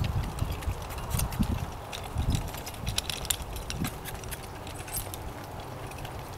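Hoofbeats of a pair of Percheron draft horses walking on soft, worked dirt, dull irregular thuds, with the clinking and jingling of their metal harness hardware.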